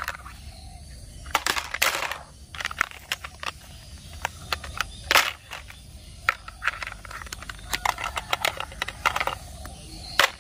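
Plastic toy train track pieces clacking against each other as they are gathered by hand and dropped into a plastic basket, a string of sharp irregular clicks.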